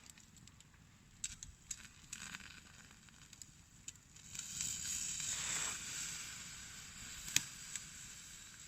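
Wood campfire crackling with scattered sharp pops, then a hiss that swells about four seconds in and slowly fades, with one sharp crack near the end.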